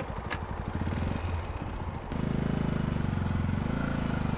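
Yamaha WR125 dirt bike's single-cylinder four-stroke engine running at low revs with a chugging pulse. About two seconds in the throttle opens and it runs louder and steadier as the bike pulls away along the track.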